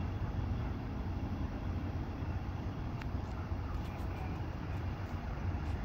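Steady low rumble of idling emergency-vehicle engines, with a few faint ticks in the second half.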